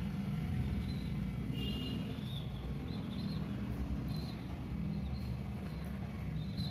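Steady low background rumble, with a few faint, short bird chirps over it.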